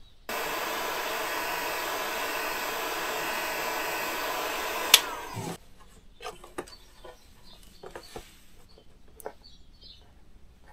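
Electric soldering gun switched on, giving a steady hum for about five seconds, then switched off with a click, while hall-sensor wires on an ATV hub motor are being soldered. Light handling clicks follow.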